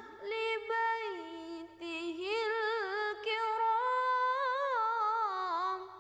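A single voice chanting Arabic letter names in long, drawn-out melodic tones, the pitch wavering on each held note, with short breaths between phrases; it fades out at the end.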